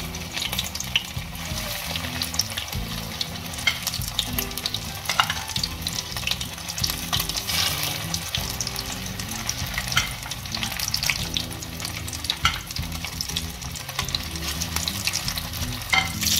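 Breaded potato-and-cheese croquettes shallow-frying in hot oil in a metal pan, a steady sizzle dotted with many small crackling pops.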